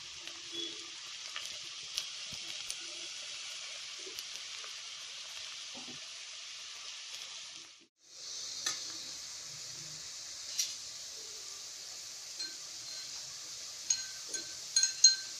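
Chopped onions frying in hot oil in a steel pot, a steady sizzle that breaks off for a moment about halfway through. A few sharp clinks with a short ring come near the end.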